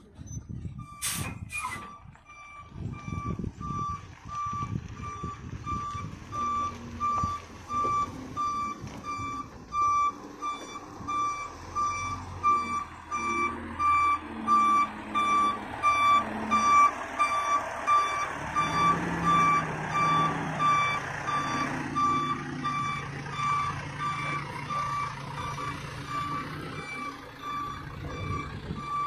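Vehicle reversing alarm beeping at an even pace as a large vehicle backs up, with its engine running underneath. A brief sharp noise comes near the start.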